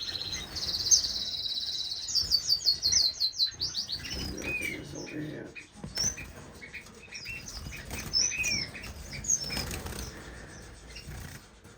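Small finches chirping: rapid high-pitched trills for the first few seconds, then scattered short chirps and sweeping calls, with wings fluttering now and then.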